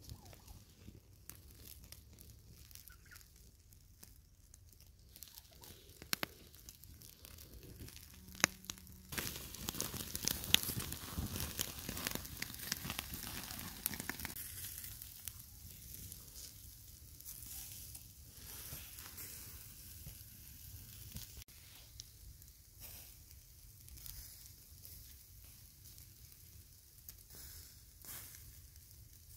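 Turkey kebabs on metal skewers sizzling over a charcoal pit, a steady hiss with scattered crackles, loudest about a third of the way in.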